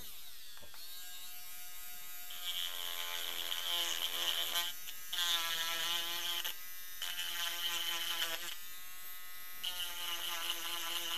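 Cordless mini rotary tool (Topshak TS-MG1) whining as its pink grinding-stone bit grinds a black plastic part. The tone shifts in pitch and breaks off briefly a few times as the stone is pressed in and eased off.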